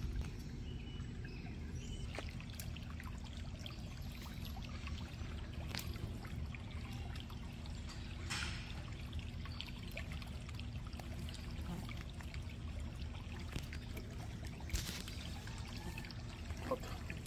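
Shallow creek trickling and flowing steadily, with a few brief clicks and rustles on top.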